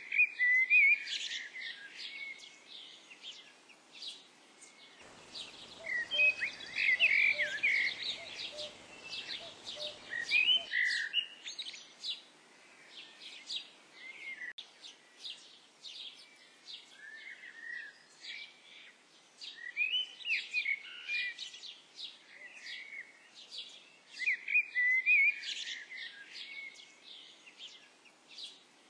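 Wild birds calling and singing: a steady chatter of short high chirps, with louder chirping phrases every few seconds. A faint low rumble runs in the background for about five seconds near the middle.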